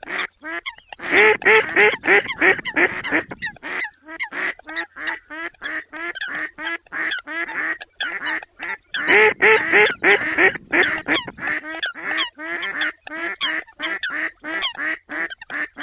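Eurasian coots and mallards calling in a rapid, continuous run of short nasal calls, about three or four a second, with two louder stretches about a second in and again around nine seconds in.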